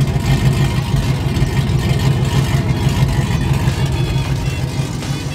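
Air compressor running steadily with a fast, even pulsing hum as it pumps air into a tire.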